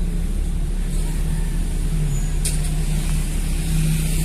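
Car engine running at low speed, heard from inside the cabin as a steady low hum. A short, sharp hiss comes about two and a half seconds in.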